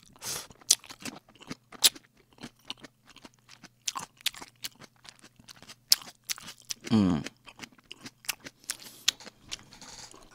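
A man chewing kimchi close to the microphone: wet crunching and mouth smacks in quick, irregular clicks. About seven seconds in comes a short hummed 'mm' that falls in pitch.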